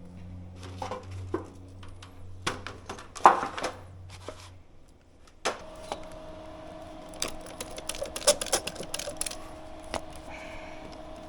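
Irregular clicks and knocks of hands-on work with tools and materials, the loudest about three seconds in, over a low hum that stops about halfway; a sharp knock follows, then a faint steady tone.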